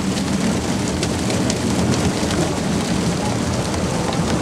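Fishing boat under way: a steady rush of water and spray over a low engine drone.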